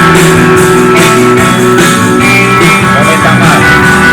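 Guitar rock music played loud through a pair of small homemade speaker boxes driven by a small amplifier board, turned up to their maximum volume.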